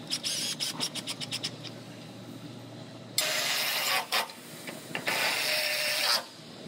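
Cordless electric ratchet running in two bursts of about a second each, turning a bolt at the liftgate. Before that, a quick run of clicks.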